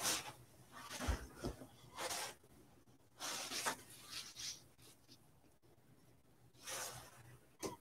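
Handling noises: several short rustling, rubbing scrapes spread through the few seconds, with two soft low bumps a little after a second in.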